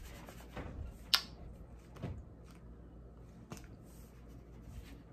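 Faint knocks and rustles of a foam drink cup being handled close to the microphone, with one sharp click about a second in.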